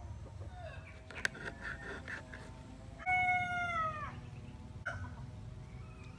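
A rooster crowing once about halfway through, a held call of about a second that drops in pitch at the end. A sharp click comes about a second in.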